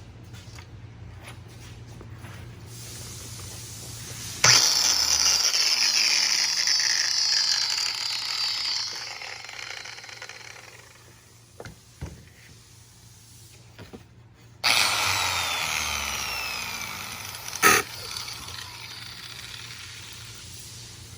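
Corded power tool motor switched on twice. Each run starts suddenly with a high whine whose pitch falls as the motor coasts down over several seconds. A sharp click is heard late in the second run.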